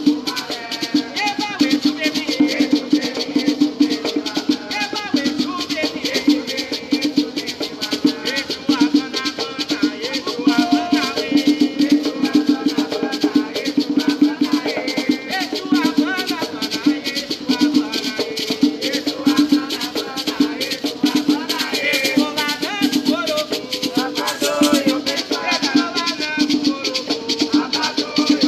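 Afro-Brazilian batuque music: hand drums beaten in a steady, driving rhythm, with gourd rattles shaken along with them and men's voices singing a liturgical chant to the orixás.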